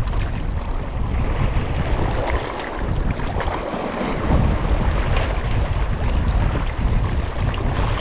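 Wind buffeting the microphone in a gusty low rumble, over the wash of small sea waves against shoreline rocks.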